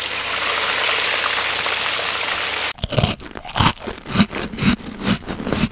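A steady hiss for nearly three seconds. It then stops and gives way to a run of irregular crunching and chewing: someone eating crunchy food close to the microphone.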